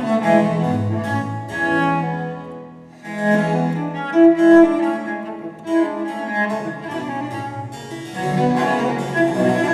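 Instrumental classical-style music with a cello or other bowed strings and a keyboard, played back through hi-fi floorstanding speakers and recorded by microphone in the room. It dips briefly about three seconds in, then comes back.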